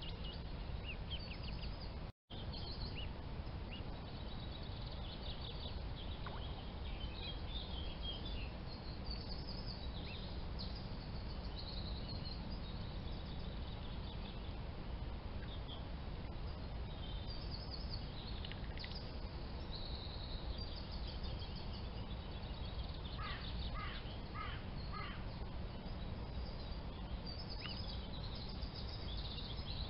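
Birds chirping and twittering in short, high calls over a steady low noise, with a quick run of repeated chirps about three quarters of the way through. All sound cuts out for a moment about two seconds in.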